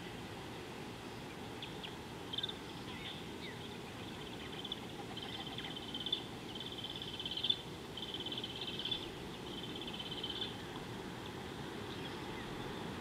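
Small wild animals calling in several short, high, rapid trills, spread over the first ten seconds, over a steady low hiss of outdoor background noise.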